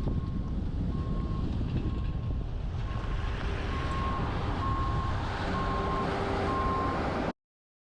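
Wind and road rumble on a roof-mounted camera of a moving truck, with a vehicle backup alarm beeping about once a second that grows louder from about three seconds in. The sound cuts off suddenly near the end.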